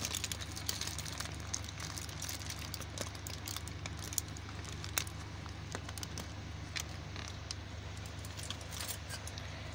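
Plastic bag and aluminium foil crinkling and crackling as they are handled, in scattered small clicks over a steady low hum.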